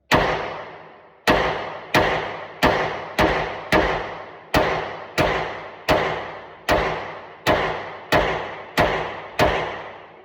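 Gunfire from a semi-automatic firearm: fourteen single shots fired at an uneven pace, about one to two a second, each shot followed by a ringing decay.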